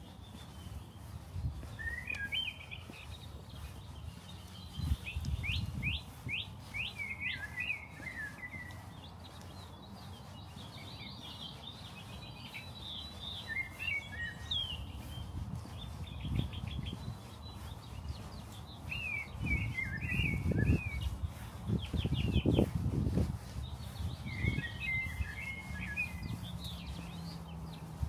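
A songbird singing short bursts of rapid chirps and trills, repeated every few seconds. Under it are low thuds and rumble, loudest about two-thirds of the way through.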